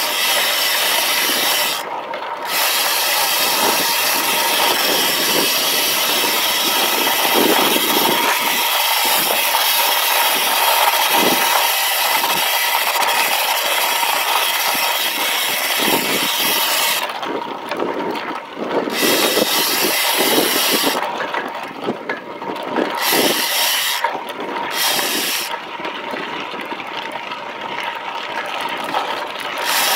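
Wind rushing over a helmet-mounted camera and road-bike tyres rattling and crunching over a dirt road on a fast descent. The hiss drops away for a second or two several times in the second half.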